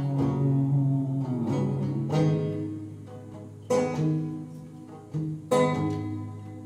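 Banjo chords plucked and left to ring, each dying away before the next is struck every second or so, in a slow instrumental passage of a folk song.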